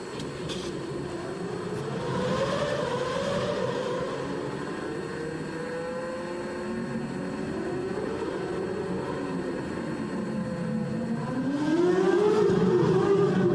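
Onboard sound of a McLaren Formula One car's engine, its note rising and falling in pitch as the revs change, with a louder rising sweep near the end.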